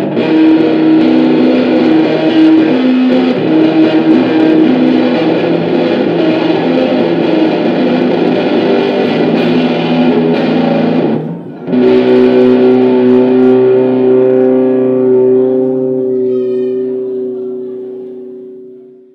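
Electric guitar music played through effects, with two notes alternating in a repeating pattern. About eleven seconds in it breaks off briefly, then a long held chord rings out and slowly fades away.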